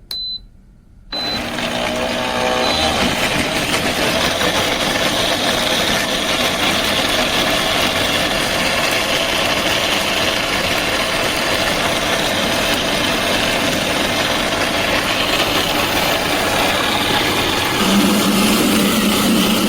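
2000 W jug blender: a short electronic beep, then about a second in the motor spins up and runs loudly and steadily at high speed, its tone shifting near the end.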